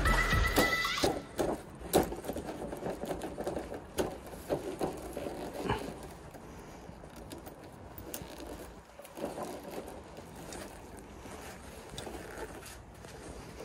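Scattered light knocks, clicks and rustling as a Honda Zoomer scooter's handlebar is twisted and worked loose from its handlebar post by hand. A few sharper knocks stand out in the first half, and the tail of background music fades out near the start.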